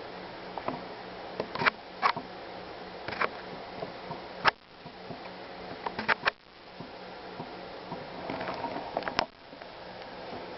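Steady hiss with a faint low hum, broken by a dozen or so sharp clicks and knocks of camera handling. After the loudest knocks, about four and a half and six seconds in, the background briefly drops away and comes back.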